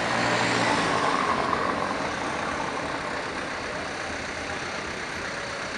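Street traffic: car engines and tyres on paving as an old Mercedes-Benz sedan drives slowly past, loudest in the first couple of seconds and then easing off.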